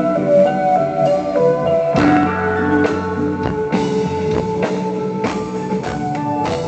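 Live instrumental rock band playing, heard from within the audience: held electric guitar notes, with drum and cymbal hits coming in about two seconds in.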